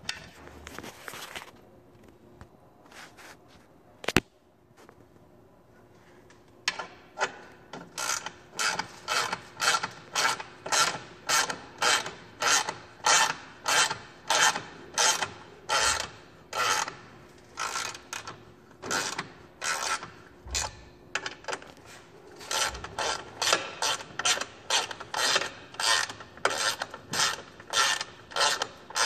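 Socket ratchet wrench clicking in quick back-and-forth strokes, about one and a half a second, as it runs bolts into an aluminum skid (bash) plate. It starts about seven seconds in, after some light handling and a single sharp click.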